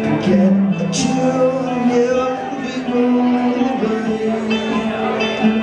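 Live blues song: a man singing while strumming and picking a guitar, notes ringing and held.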